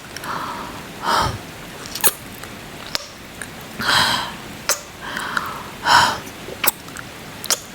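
Close-up kissing sounds: wet lip smacks and pops about once a second, mixed with soft breaths and a few louder breathy kisses, over a steady rain background.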